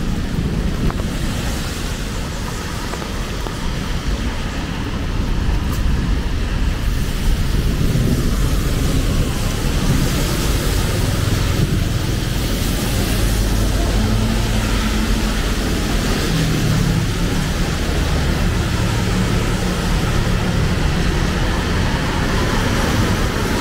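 Heavy rain falling steadily on a city street, mixed with road traffic; it grows a little louder about five seconds in, and a vehicle engine hums low underneath in the second half.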